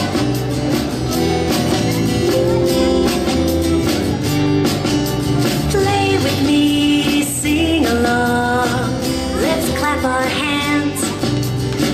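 Music playing: a woman singing over guitar and a steady beat.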